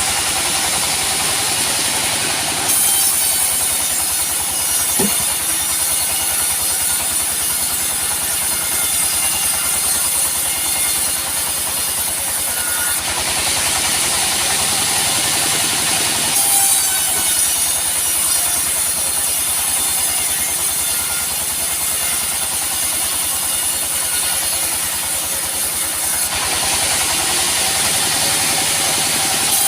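Band sawmill running and cutting a teak log. The blade's high-pitched cutting noise rises for two long passes of about ten seconds each, with the machine running more quietly between them.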